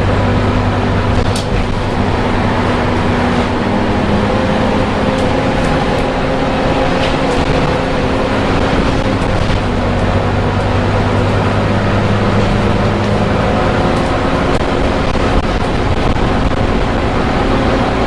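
Volvo B9TL double-decker bus heard from a seat inside while under way. Its 9.4-litre six-cylinder diesel runs at a steady hum under constant road noise, with a few faint rattles from the interior.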